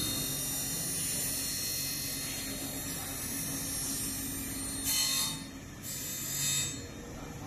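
Large grinding wheel of a Weijing casting fettling machine running with a steady hum and thin high whine, with two short hissing bursts of grinding near the end as the wheel works the edge of a cast grating.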